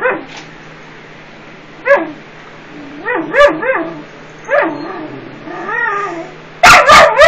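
A small dog whining and yowling in a string of short calls that rise and fall in pitch, a few in quick succession about halfway through, ending with three loud, sharp calls close together.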